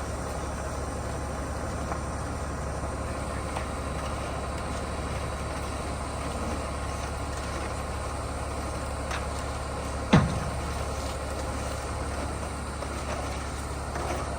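Concrete truck's engine running steadily, with one sharp knock about ten seconds in.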